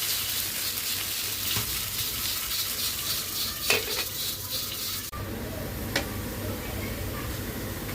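Crushed potatoes sizzling as they fry in hot oil, with a utensil knocking against the pan about four seconds in. About five seconds in the sizzling cuts off abruptly, leaving a low hum and a single clink.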